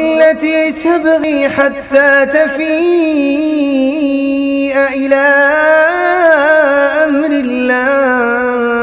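A man reciting the Quran in a melodic tajweed style, drawing out a long, ornamented held note whose pitch winds up and down with hardly a break.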